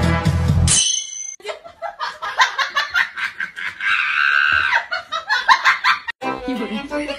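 Rapid, high, laughter-like squeals in quick short bursts, with one longer held squeal about four seconds in, over a kitten being tickled on its belly. Music plays for the first second and comes back after about six seconds.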